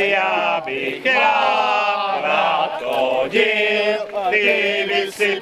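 A group of voices singing a folk song together in loud chorus, holding long notes.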